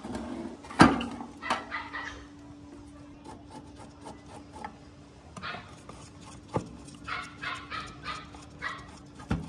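A sharp metallic clank about a second in as the rusty steel housing of a smoke machine is handled on the bench, the loudest sound here. After it come a few lighter knocks and several runs of short squeaky scrapes over a faint steady hum.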